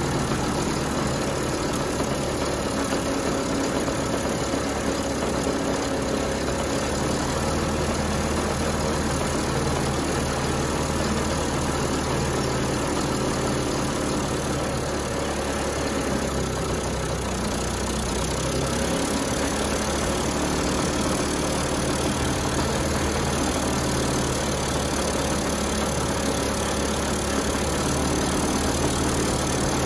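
A Honda Express moped's 49cc two-stroke single-cylinder engine idling steadily, warmed up, while it is run on a bench.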